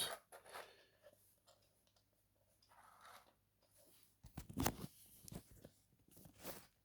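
A few faint clicks and light rustling as plastic Lego plates are handled and pressed into place, a cluster about four to five seconds in and another near the end.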